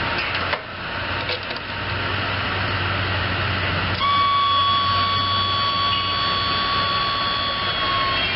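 Hustler Raptor zero-turn mower's Kohler 25 HP gas engine running steadily. About four seconds in it gets louder and a steady high whine sets in and holds.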